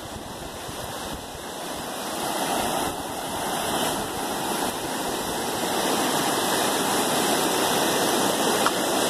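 Flash-flooded creek's fast, high water rushing steadily, growing louder over the first few seconds and then holding.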